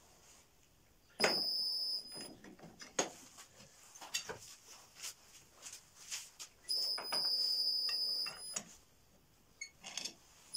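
Metal knocks and clanks from working stock on an Uzor-N1 cold-forging bending machine, with a steady high-pitched squeal twice: about a second long just after the start, and nearly two seconds long past the middle.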